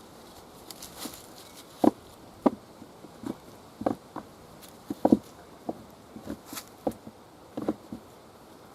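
A series of irregular, dull knocks and taps, about a dozen spread unevenly, with a faint steady hiss behind them.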